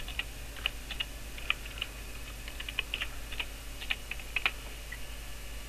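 Computer keyboard typing: an uneven run of keystroke clicks that stops about four and a half seconds in, over a steady low hum.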